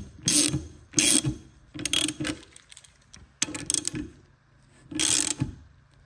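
Hand ratchet with a 17 mm socket clicking in about five short bursts as it is swung back and forth, tightening the bolt of a bush removal tool that presses an old bushing out of a suspension wishbone.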